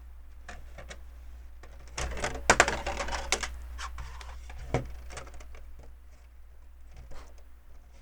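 LEGO plastic pieces clicking as a plate is handled and pressed into place, with a quick run of sharp clicks about two seconds in and scattered single clicks after, over a steady low hum.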